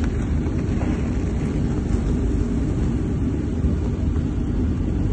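Nuclear icebreaker Sibir breaking sea ice: a steady, deep rumble of ice crushing against the hull.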